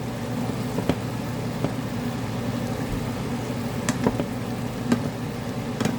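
Steady low mechanical hum with several sharp clicks of a utensil against the pot as the bok choy bhaji is checked.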